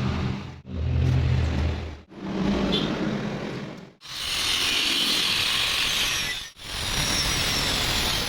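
Electric arc welding on a round pipe: a steady crackling hiss with a low hum, in several short stretches that stop and start abruptly.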